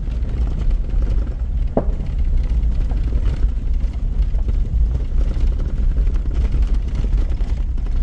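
Car driving along a dirt track, heard from inside the cabin: a steady low rumble of engine and tyres, with a sharp knock about two seconds in.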